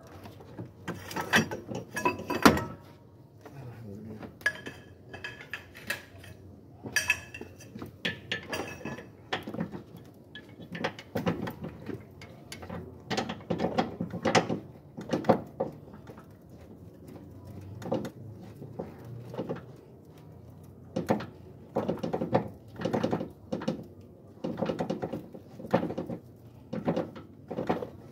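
Metal hand tools and bolts clicking and clinking in irregular bursts while a new engine mount is bolted in, with a brief metallic ring about a third of the way in.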